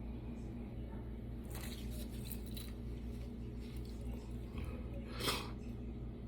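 A steady low hum, with a few short rustling noises about a second and a half to nearly three seconds in and one brief louder rustle or scrape about five seconds in.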